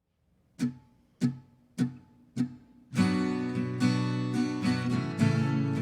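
Four sharp, evenly spaced hits counting in, then strummed acoustic guitar comes in about three seconds in, with full chords played steadily.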